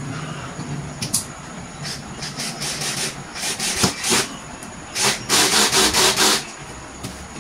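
Scraping and rubbing of flat-pack furniture parts being worked by hand during assembly. There is a sharp click about a second in, then two runs of quick scraping strokes in the second half.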